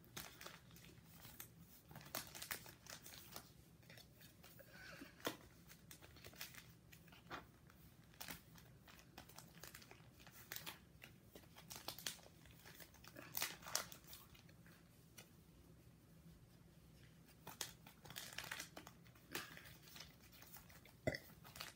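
Plastic pocket pages of a card binder crinkling and rustling as baseball cards are handled and slid into the sleeves: quiet, irregular crackles scattered throughout.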